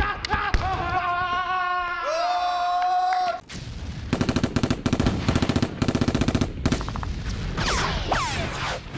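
A jūkendō fighter's long, held kiai shout, with sharp clacks of wooden practice bayonets. About three and a half seconds in it cuts off and gives way to bursts of rapid automatic gunfire, with a falling whine near the end.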